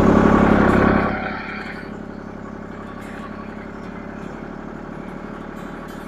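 Compact tractor engine just after starting: loud for about a second as it catches and revs, then settling to a steady idle.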